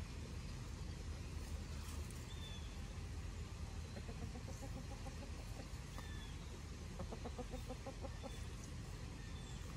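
Chickens clucking softly, with a run of quick low clucks about four seconds in and another about seven seconds in, over a steady low rumble.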